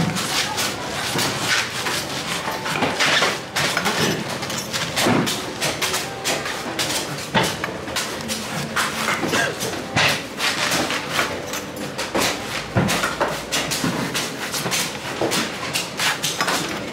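A knife or cleaver chopping into coconuts: quick, irregular knocks and chops, several a second, over a background din.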